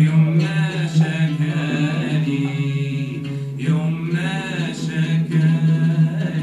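A live Arabic song: several voices singing over oud and violin, with a steady low note held underneath.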